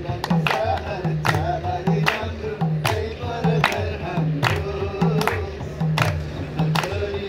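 Madal, the Nepali two-headed barrel drum, played by hand in a repeating folk rhythm, with a group clapping along and singing.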